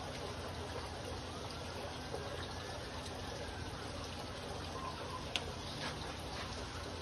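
Water trickling steadily in a fish tank, as from the aquarium's filter return, with one sharp click about five seconds in.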